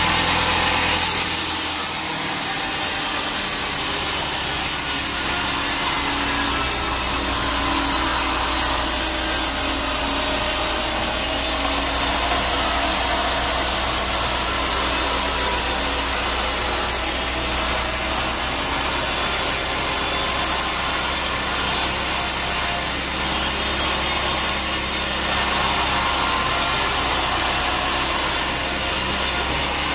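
Sawmill bandsaw cutting through a teak log: a steady, continuous sawing of the blade in the wood over a low, even hum of machinery.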